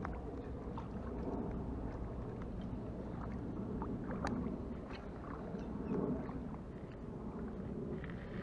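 Steady low rumble of wind and water lapping at the bank, swelling and easing, with a few faint scattered clicks.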